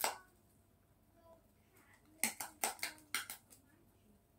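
Sharp clicks and clinks from a rabbit at the base of a metal wire pen: one at the start, then a quick run of about seven in little more than a second about halfway through.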